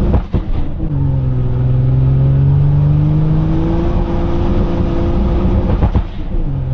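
Turbocharged 1.5JZ inline-six engine in a BMW E46 M3, heard from inside the cabin while driving. The revs drop with a gear change about a second in, then climb steadily under light acceleration, and drop again with another shift near the end.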